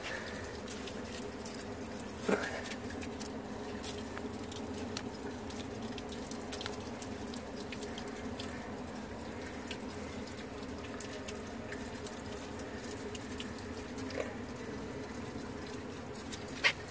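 Thin stream of mineral spring water pouring steadily from a fountain spout into its basin, with two short knocks: one about two seconds in and one near the end.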